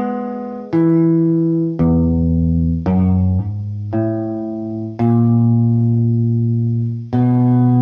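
Guitar playing a slow blues lick. Separate notes, a few with two strings sounded together, are each left ringing for up to a couple of seconds before the next one is picked.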